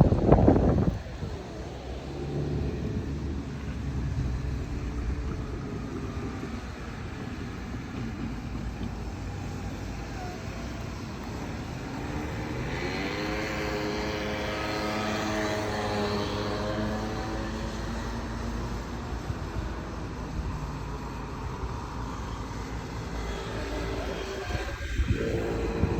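A loud noise dies away about a second in, leaving the drone of a passing engine. The drone swells to its loudest about halfway through, its pitch gliding as it goes by, then fades.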